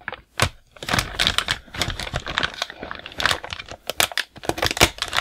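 A hobby knife slitting packing tape on a plastic shipping bag, the bag crinkling, heard as an irregular run of sharp clicks and short rustles.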